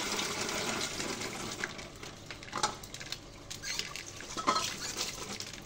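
Kitchen tap running, dying away about two seconds in, followed by a few sharp clinks of kitchenware.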